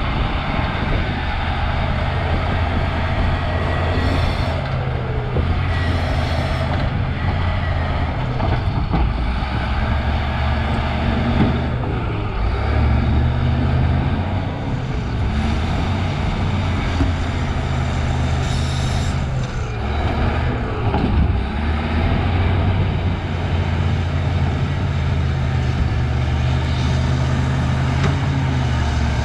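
Cat D6H bulldozer's six-cylinder diesel engine running hard, its note rising and falling as the load changes while it works. A few sharp knocks cut through, about four and six seconds in and again past the middle.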